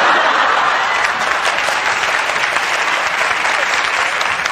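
Studio audience applauding: dense, steady clapping that holds loud throughout.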